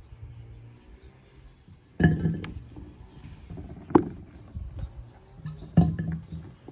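Green Nanko ume plums dropped one at a time into an empty glass fruit-liqueur jar, each landing with a sharp knock on the glass bottom: three drops about two seconds apart.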